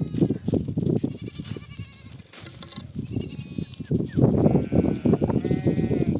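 Goats bleating several times: short calls about a second and three seconds in, then a longer run of bleats near the end, over a constant low knocking and shuffling.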